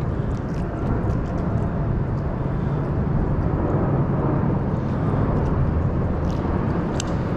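Steady rushing of river water pouring over a low dam, running high after heavy rain. There is a sharp click near the end.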